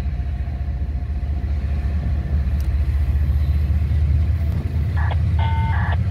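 Steady low engine rumble. About five seconds in come a short burst and then a brief chord of several steady high tones.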